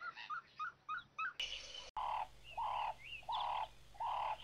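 Birds calling: a quick series of short repeated notes, then, about a second and a half in, louder and longer notes take over. These come about four times, each about half a second long and roughly two-thirds of a second apart, with higher chirps over them.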